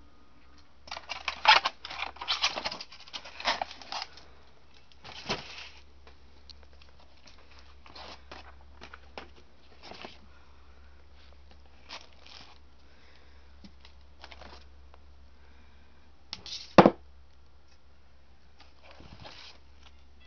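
Plastic DVD cases being handled and rummaged through: a flurry of clacking and rustling in the first few seconds, then scattered light taps and one sharp knock about three-quarters of the way through, over a steady low hum.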